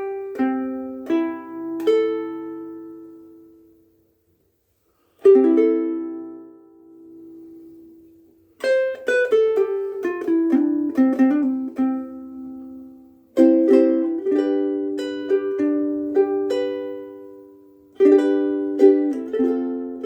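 Koaloha KSM-01 pineapple soprano ukulele strung with UkeSA strings, played with chords that are left to ring and fade, broken by quick picked runs of notes. The playing stops for about a second around four seconds in, then starts again.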